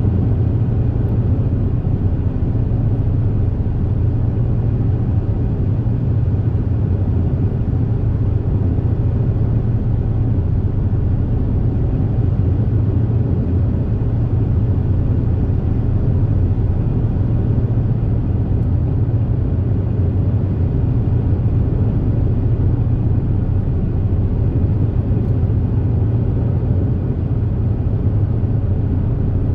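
Steady engine rumble and hum of the Super Jet high-speed ferry "Zuiko" running at cruising speed, heard from on board. It is a constant deep drone with no change in pitch or level.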